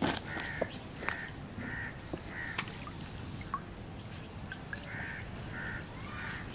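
Crows cawing: short calls repeating every half second or so in several runs. A few sharp clicks or knocks are heard, the loudest right at the start.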